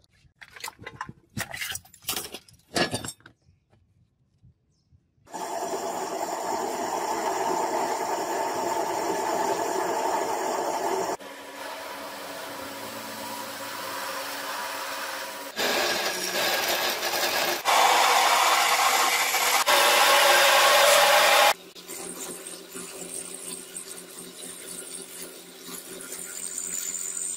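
Machine tools cutting steel: a lathe driving a drill bit into a steel bar, and an end mill cutting into a steel piece, each running steadily with a mechanical whine. The noise comes in several clips that start and stop abruptly at different loudness, after a few sharp taps near the start.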